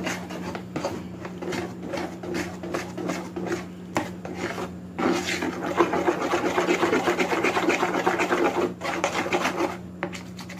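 Spoon stirring pancake batter in a bowl, with rapid repeated scraping against the bowl. The stirring gets louder from about five seconds in and eases off again near the end.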